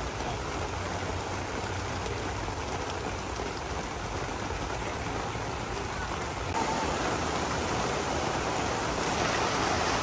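Thunderstorm rain falling steadily, heard from under a day bed's roof. It grows suddenly louder about six and a half seconds in.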